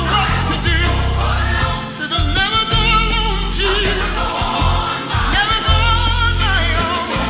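Gospel choir singing with vibrato over a band with a strong bass line.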